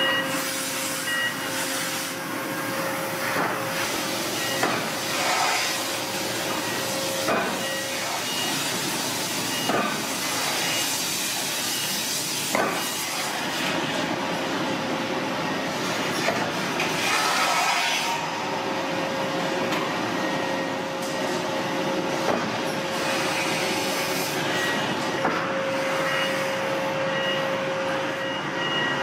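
Forge-shop noise from hydraulic forging machinery working hot steel: a steady hiss with a constant hum and scattered knocks. Short high beeps sound near the start and again near the end.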